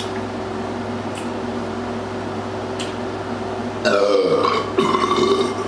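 Two loud burps in quick succession about four seconds in, carbonation burps brought up by gulping Sprite, over a steady background hum.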